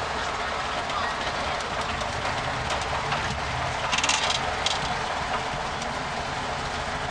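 1930 Ford Model A pickup's four-cylinder engine running noisily at low speed, heard from inside the cab; its carburetor has no air cleaner. A brief rattle of sharp clicks about four seconds in.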